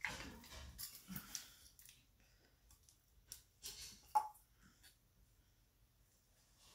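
Faint rustling and a few short clicks from handling a small artificial pine Christmas tree, with rustling in the first two seconds and scattered clicks about three to five seconds in.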